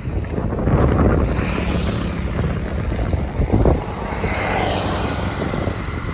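A motor vehicle going past on the road, a steady, fairly loud engine-and-tyre noise.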